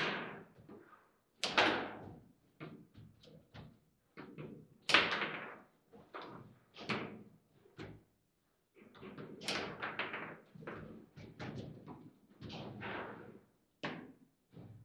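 Table football in play: the ball cracking against the plastic figures and the table's walls and the rods knocking, a rapid, irregular string of sharp knocks, the hardest strikes about a second and a half in and about five seconds in.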